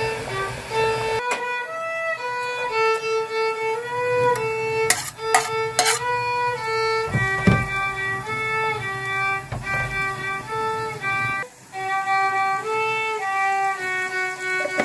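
Background violin music: a solo melody of held notes moving up and down in small steps. There are a few sharp clicks about five to six seconds in.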